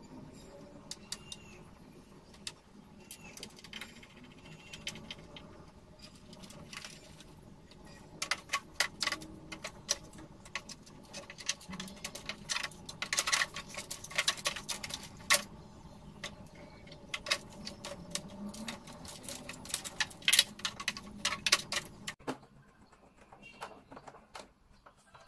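Clicking and clattering of hard plastic and metal parts and tools being handled while an air-conditioner indoor unit's new blower wheel and fan motor are fitted and fastened. The clatter comes in quick runs, busiest in the middle, and stops abruptly near the end.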